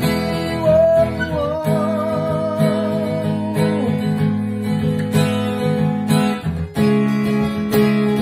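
Acoustic guitar strummed while a man holds one long sung note with vibrato over the first few seconds, which slides down and stops; the guitar then carries on strumming alone.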